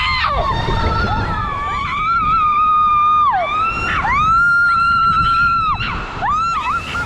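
Water-slide riders screaming: several long, high-pitched screams, each held for a second or more and sometimes two voices at once, over a steady low rush of water.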